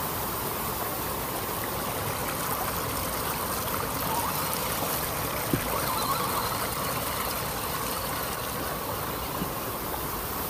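Shallow stream rushing over rocks close to the microphone, a steady noisy rush that swells a little around the middle as an RC crawler's tyres splash through the water. A single sharp click comes about five and a half seconds in.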